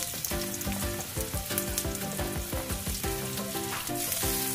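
Sliced onion sizzling as it fries in hot olive oil in a wok, stirred with a spatula; the sizzle grows louder near the end. Background music plays underneath.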